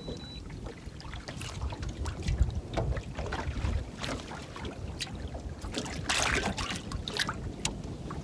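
Wind rumbling on the microphone aboard a small fishing boat, with scattered light clicks and knocks from handling tackle and a louder rustle about six seconds in.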